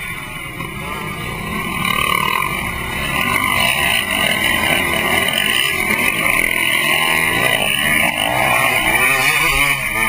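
Several off-road dirt bike engines running and revving close together, heard up close from among the riders, with a rough, uneven level throughout.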